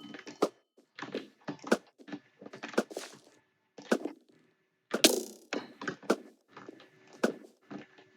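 Typing on a computer keyboard: irregular clacks of keys struck in quick runs with short pauses, and a louder flurry of keystrokes about five seconds in.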